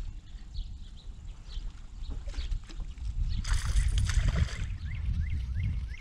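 A fishing cast: a hiss lasting about a second, about three and a half seconds in, as the line pays out. Then the reel is cranked, with a short repeated whir two or three times a second. Water laps against the boat's hull throughout.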